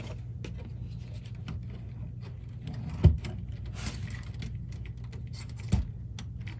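Akai GX-R88 cassette deck's tape transport being worked loose from the chassis by hand: scattered faint clicks and rattles, with two louder knocks, one about three seconds in and one near the end, over a steady low hum.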